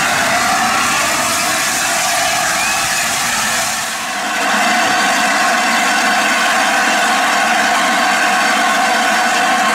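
LNER Class A4 steam locomotive 60007 Sir Nigel Gresley coming slowly along the platform. About four seconds in the sound dips briefly and gives way to a steady hiss as the engine stands at the platform.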